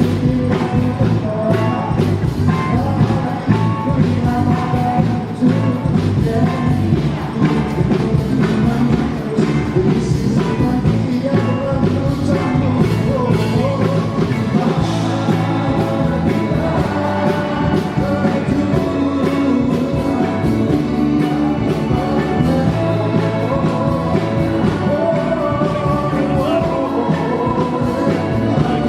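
A rock song with a singing voice over drums and guitar, loud and steady.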